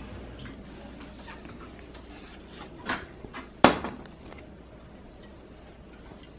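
Two short knocks, a light one about three seconds in and a sharper, louder one just over half a second later, over a faint steady low hum.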